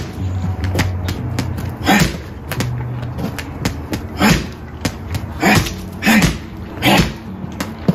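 Boxing gloves hitting a water-filled 18-inch, 120 lb aqua punching bag: a string of heavy punches at uneven spacing, about six hard thuds with lighter taps between them.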